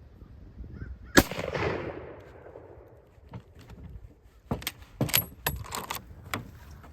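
A Mauser K98 bolt-action rifle fires one 8mm round about a second in, the report echoing away over about a second. A few seconds later come several sharp metallic clacks as the bolt is worked.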